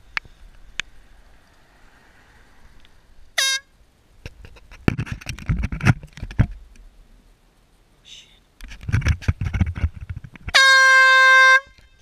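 Handheld canister air horn: a short blip about three and a half seconds in, then one loud, steady blast of about a second near the end. Between them come stretches of low thumps and rustling.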